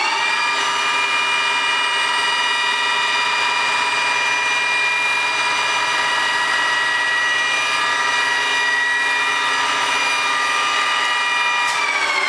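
Promax 26" x 120" engine lathe running under power, its gear drive giving a steady whine of several pitches at once. Near the end there is a click and the pitch starts to fall as the machine slows down.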